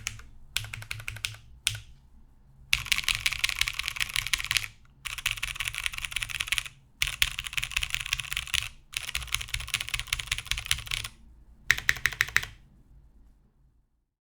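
Mechanical keyboard with lubed vintage Cherry MX Clear switches on a top-mounted aluminum plate with no dampening foam, typed on in quick runs of keystrokes with short pauses between them. A last short burst about twelve seconds in ends the typing.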